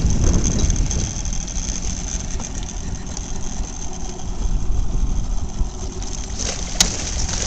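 Fishing reel being cranked, its gears clicking, over a steady low rumble. Near the end the hooked brown trout thrashes and splashes at the surface.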